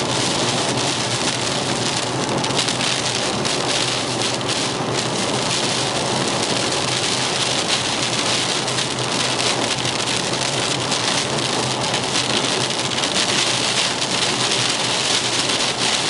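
Heavy thunderstorm rain pelting the roof and windscreen of a moving car, heard from inside the cabin: a dense, steady hiss studded with countless sharp drop impacts over a low, steady hum.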